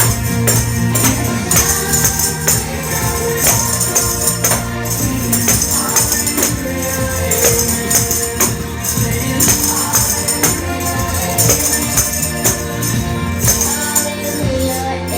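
Hand tambourines struck and shaken in a steady rhythm over a recorded Christian rock song with singing; the bright jingling stops right at the end.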